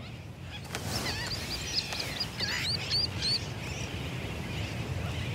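Sooty tern calls: a quick run of about ten short, high, upward-hooked chirps, starting about a second in and stopping near the middle, over a steady background hiss.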